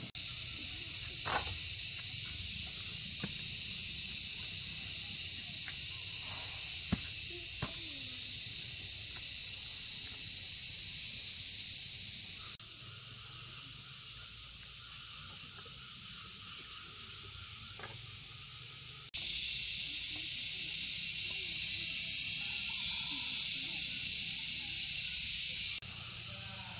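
Steady high-pitched drone of insects filling the air, jumping abruptly louder or softer several times. A few sharp knocks in the first seconds as sugar-cane stalks are set into a wicker basket.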